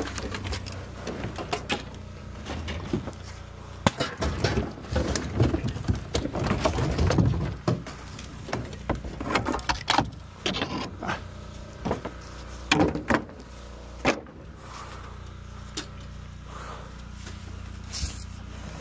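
Junk being handled and tossed onto a scrap pile: irregular knocks, clatters and rattles of wood, sheet metal and plastic, busiest in the first half, over a low steady hum.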